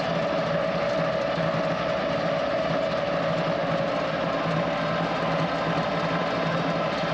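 Kioti CK2610 compact tractor's diesel engine running steadily at an even speed.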